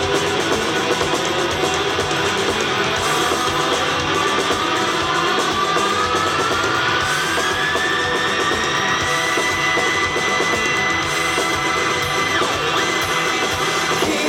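Rock band playing, electric guitar to the fore, with one long note gliding slowly upward in pitch over several seconds and then held until it breaks off near the end.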